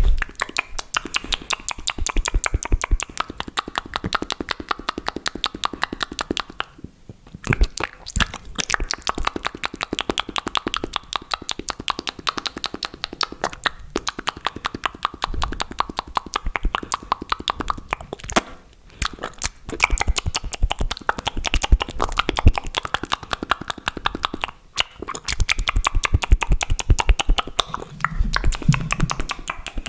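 Fast, aggressive ASMR mouth sounds, close to the microphone: rapid wet clicks, smacks and pops in quick runs, with a few short pauses.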